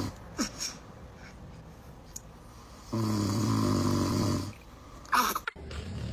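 A man snoring: one long rasping snore about three seconds in, lasting about a second and a half. A few faint clicks and squeaks come before it, and a short, louder high-pitched sound comes about five seconds in.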